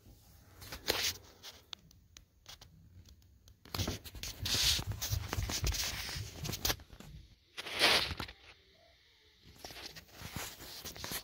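Handling noise as die-cast model cranes are moved on a table and the camera is carried: irregular rustling and scraping with scattered sharp clicks, loudest about four to seven seconds in and in a short burst near eight seconds.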